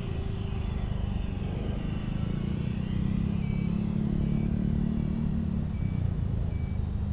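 A 6-inch FPV quadcopter on T-Motor Velox 2207 2550KV motors and Gemfan Hurricane 6045 propellers, buzzing steadily as it flies forward. Its hum grows a little stronger, then weakens near the end as the drone pulls away. From about halfway through, a faint high electronic beep repeats roughly every three-quarters of a second.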